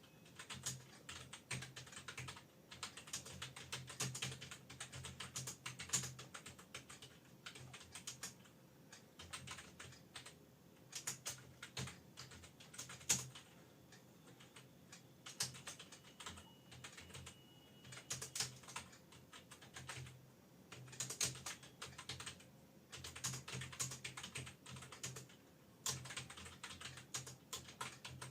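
Fast typing on an external computer keyboard connected to a laptop, keystrokes clattering in quick runs broken by short pauses.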